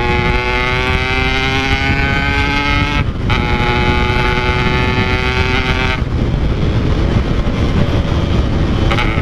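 Yamaha RX-King 135cc two-stroke single-cylinder engine with a Packing Power exhaust, riding on the road. The engine note climbs slowly, breaks briefly for a gear change about three seconds in, and runs steady to about six seconds. The throttle then eases off, leaving a rush of wind and road noise until the engine pulls again near the end.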